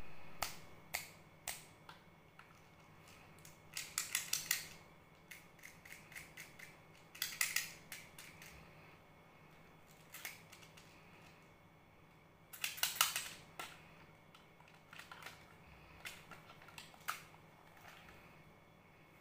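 Plastic candy-filled toy bicycles and a toy motorcycle being handled: scattered sharp clicks and taps of hard plastic, with three short bursts of rapid rattling as the small candies inside the clear plastic wheels are shaken.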